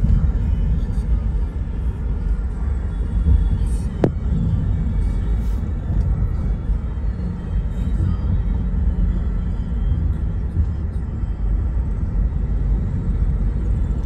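Car driving on fresh asphalt, heard from inside the cabin as a steady low rumble of road and engine noise. A single sharp click comes about four seconds in.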